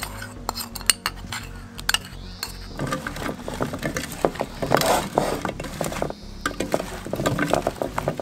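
A spoon scraping and clinking against a bowl as garlic-herb oil is scraped out, then, from about three seconds in, hands tossing sliced zucchini, eggplant and bell pepper in the oil in a plastic bowl.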